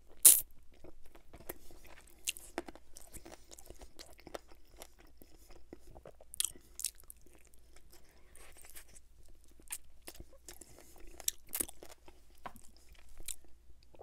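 Close-miked eating of a buffalo chicken wing: chewing and biting with many short, sharp mouth clicks and smacks, the loudest a single snap just after the start.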